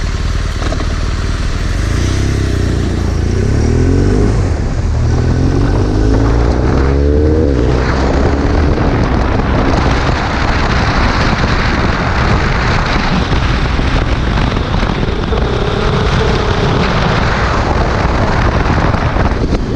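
BMW R1200R LC's boxer twin pulling away and accelerating through the gears, its pitch rising twice with a gear change between. From about eight seconds in, a steady rush of wind and road noise at speed covers most of the engine.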